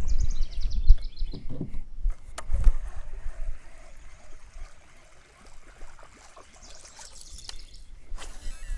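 Water trickling and lapping against a kayak hull, with a few light knocks in the first seconds and scattered small clicks near the end.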